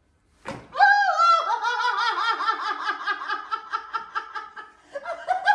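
A brief sharp knock, then a woman breaking into long, high-pitched laughter in rapid rhythmic pulses, the release of emotion after a chiropractic neck adjustment; it verges on crying.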